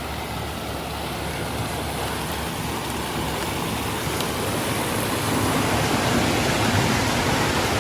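Steady rush of flowing water, growing slightly louder toward the end.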